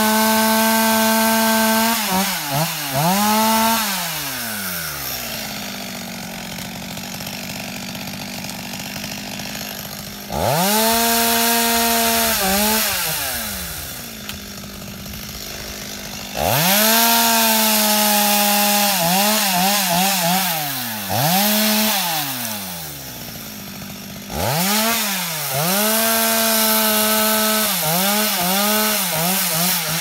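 Two-stroke chainsaw cutting tree branches. It revs to full throttle in four long bursts, each ending with a few quick throttle blips before falling back to idle.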